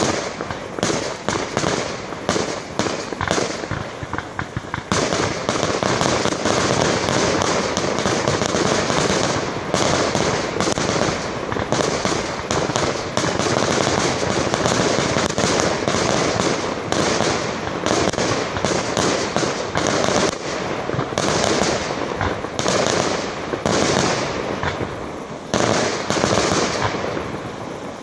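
Fireworks display: rapid overlapping bangs and crackling from aerial shells and crackling stars. It is somewhat sparser for the first few seconds, then runs as an unbroken barrage, easing briefly near the end.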